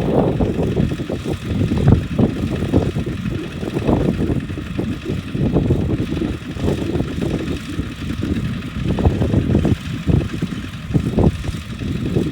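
Kubota RT140 single-cylinder diesel engine of a two-wheel walking tractor running, a loud uneven low pulsing with surges in level throughout.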